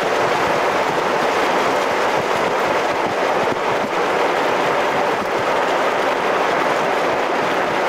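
Steady rushing road and wind noise of a vehicle driving, with no rise or fall.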